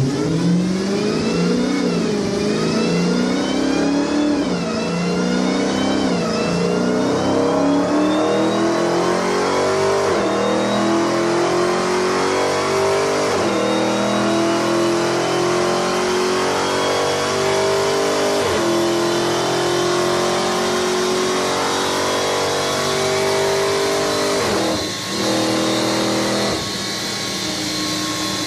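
A car engine at full throttle on a dyno, pulling up through about eight gears. The pitch climbs through each gear and drops at each upshift, with the gears lasting longer as it goes, and it settles into a steadier tone near the end.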